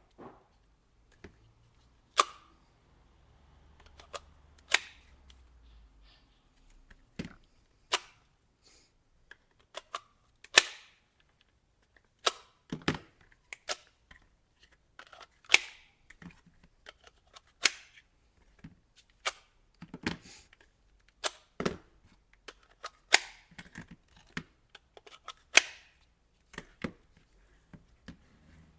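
Irregular sharp plastic clicks and snaps, roughly one a second, as an airsoft Exmag-type magazine is pushed into and pulled out of a moulded Kydex pouch, the Kydex snapping over the magazine as it locks in.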